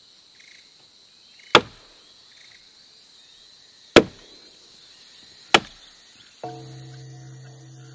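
Three sharp chopping strikes, each loud and sudden, roughly two seconds apart, over a faint steady high whine. About three-quarters of the way through, a steady low hum with overtones sets in.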